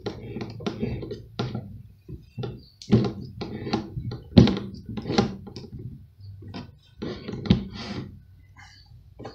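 Irregular clicks and knocks of an electric drill's keyless chuck being turned and tightened by hand onto a hole saw mandrel, with hands gripping and shifting on the plastic chuck sleeve.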